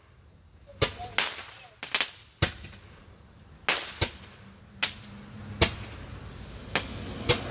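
Three Roman candles firing together, each ball launching with a sharp pop: about eleven pops at uneven intervals.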